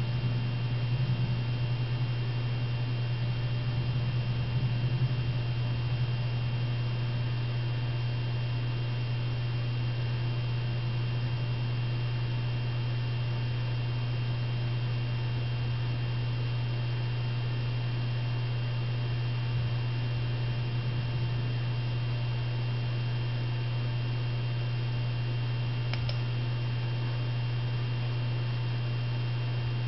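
Steady low electrical hum with a faint hiss beneath it, unchanging throughout; a single short click comes near the end.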